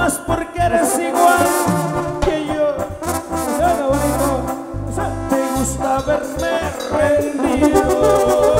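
A live band playing amplified Tierra Caliente music through a stage PA, with brass, bass and drums.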